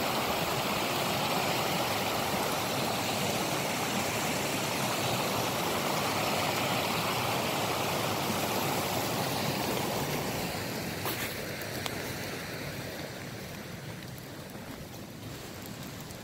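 Small woodland creek running fast over rocks: a steady rush of water that grows fainter after about ten seconds.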